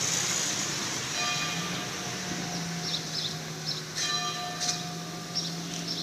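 A bell tolling slowly, struck twice about three seconds apart, each stroke ringing on and fading. Short high bird chirps fall between the strokes.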